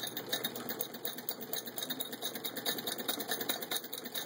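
Antique Clemens Müller Dresden sewing machine hand-cranked, stitching forward through denim: a fast, even run of mechanical clicking from the needle bar and hand-wheel gearing.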